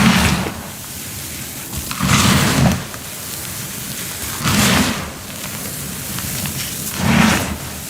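Compressed cornstarch crunching close to the microphone in four bursts, about one every two and a half seconds, over a steady hiss.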